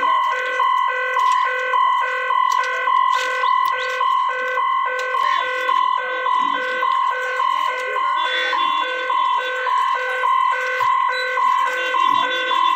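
Railway level-crossing warning hooter beeping steadily, about two to three beeps a second, with a steady higher tone beneath. It is the warning that the gate is about to close for an approaching train.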